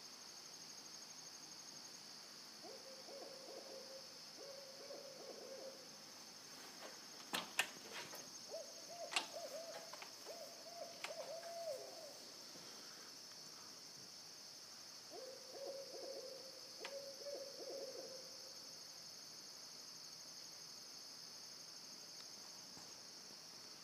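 Two owls hooting back and forth in rhythmic phrases, one lower-pitched and one slightly higher, with crickets trilling steadily behind them. A few sharp clicks fall in the middle.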